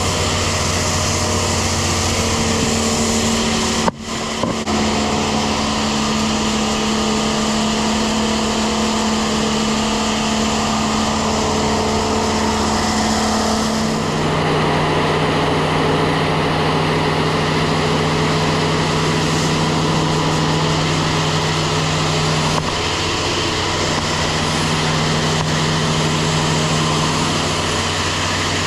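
Tractor-driven grain vac running, a steady engine drone under a strong rushing hiss of air. The sound breaks off for a moment about four seconds in, and around fourteen seconds the steady tone shifts lower.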